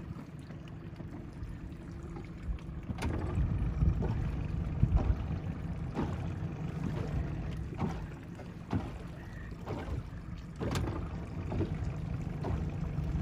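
Water sloshing against a small fishing boat's hull with low wind rumble on the microphone, broken by sharp knocks and clicks about once a second, the loudest about three seconds in and near eleven seconds in.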